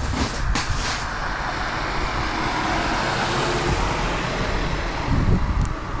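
A car driving past on a snow-covered road, its tyre noise swelling to a peak about halfway through and then fading away.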